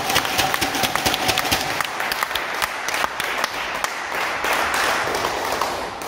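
Clapping and applause from a small group of spectators and players, a dense patter of hand claps that thins out and fades near the end. The applause greets the end of a table tennis doubles match.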